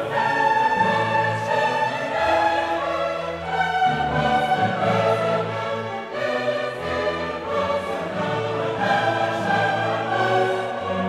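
Classical choral and orchestral music: a choir singing sustained notes over an orchestra.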